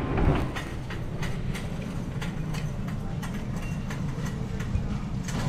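Supermarket background noise: a steady low hum with a run of light, quick ticks, about three a second.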